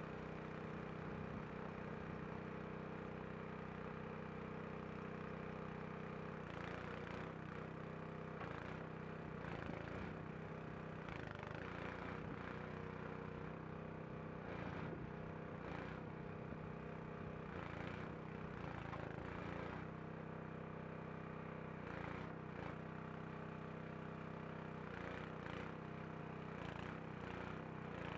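Portable hydraulic bandsaw mill's engine running steadily while its hydraulic log turner lifts and rolls a large hardwood log on the bed. Irregular clunks and scrapes come in from about six seconds in.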